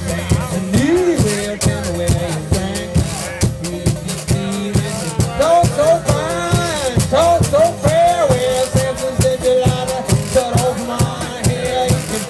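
Live acoustic blues: a twelve-string acoustic guitar fingerpicked in a fast, steady rhythm, with a washboard scraped and tapped along. A melody line bends up and down above them, loudest in the middle.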